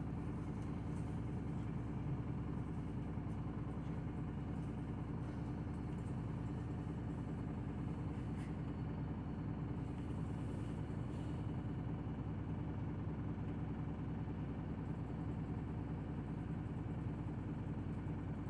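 City route bus under way, heard from inside the cabin: a steady low rumble of engine and road noise.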